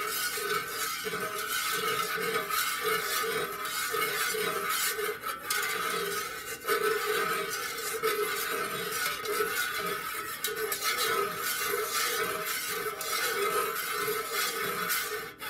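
Metal utensil stirring melted wax in a metal pouring pitcher, with slow, repeated light scrapes and clinks against the sides, over a steady pitched hum.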